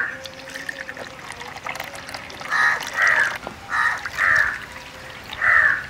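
A crow cawing: five harsh caws, two pairs and then a single, starting about two and a half seconds in.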